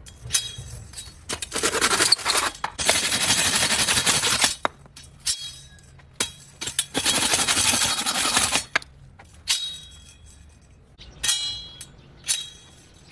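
Double saw cutting in long noisy strokes of one to two seconds each, followed near the end by a few short metallic clinks.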